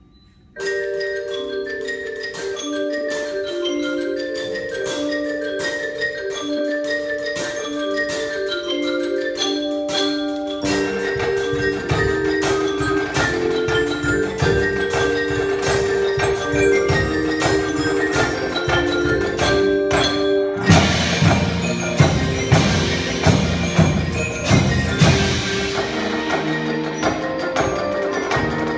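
Percussion ensemble playing: marimba and other mallet keyboards start a melody about half a second in, more parts join about ten seconds in, and drums come in with strong, regular low strikes about twenty seconds in.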